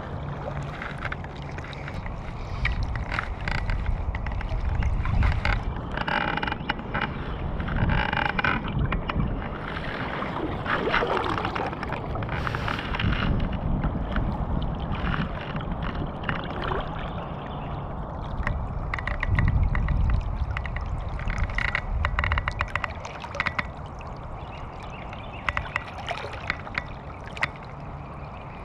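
River water sloshing and gurgling right at the microphone around a wading angler, with wind rumble. Short runs of fast clicking come about six to eight seconds in and again around twenty seconds, from the fly reel giving line.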